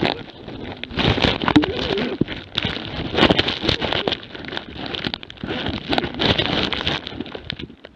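Close crackling and rustling of grass, twigs and brush scraping against a camera on a jämthund (Swedish elkhound) scuffling low in the undergrowth, with a few short whining animal cries.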